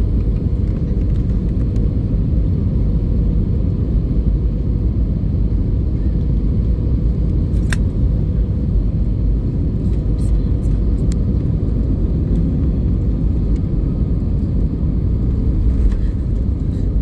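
Steady low rumble of an Airbus A320's engines and airflow, heard inside the cabin during final approach, with a few faint clicks, the sharpest about 8 seconds in.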